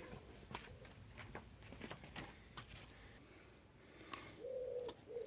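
Scattered quiet clicks and taps of hand tools being handled, with one sharper, ringing metallic clink about four seconds in. A pigeon coos faintly near the end.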